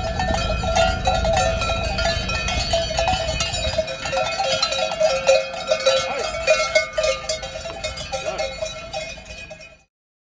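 Many cow bells clanking and ringing together in a dense, irregular jangle as a herd of cattle walks past close by. The sound cuts off suddenly near the end.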